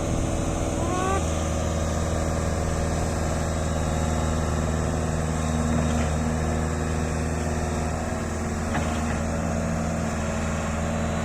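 Heavy diesel engine idling steadily: a low, even hum that does not rise or fall.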